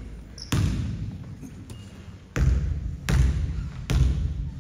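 A basketball being dribbled, each bounce echoing: one bounce about half a second in, then a steady bounce roughly every 0.8 s from about two and a half seconds in.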